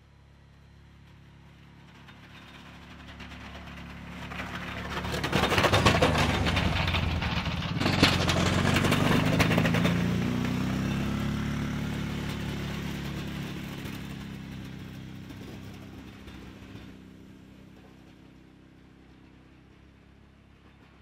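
Kawasaki Brute Force 650 ATV's V-twin engine approaching, passing close about a third of the way in, then fading away, with a hiss of snow pushed and thrown by its front plow blade as it goes by.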